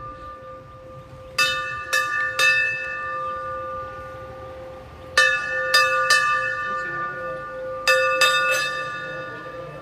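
Hanging brass temple bell rung by hand, its clapper struck in three quick runs of about three strokes each, the tones ringing on and fading between the runs.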